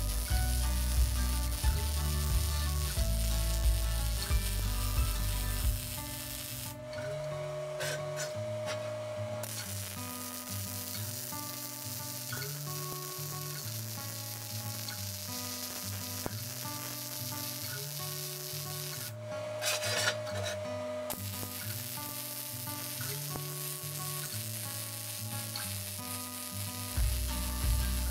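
MIG welding arc running, a steady crackling hiss that stops twice for about two seconds between welds. Background music with stepped notes plays under it, with a heavier bass for the first six seconds and again at the end.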